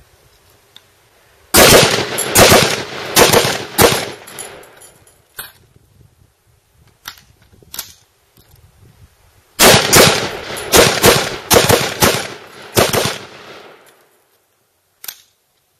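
Adams Arms piston-converted AR-15 rifle fired in two rapid strings of shots, about seven and then about ten, with a few fainter single cracks between them. Each string dies away with an echoing tail.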